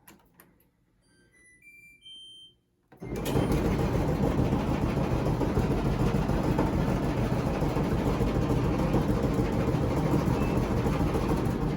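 A Kenmore/LG gas dryer's control panel beeps a short series of rising tones. About three seconds in, the dryer starts and runs loudly, its drum turning with a clunking knock. The owner traced the knock to a drum roller bearing.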